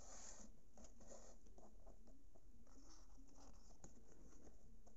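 Faint paper rustling and scraping as a page of a spiral-bound photo calendar is turned over and handled, with a burst at the start and more scratchy handling in the second half.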